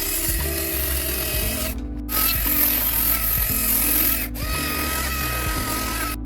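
A power tool running steadily while working wood, under background music. The sound drops out for an instant twice, about two seconds in and again past four seconds.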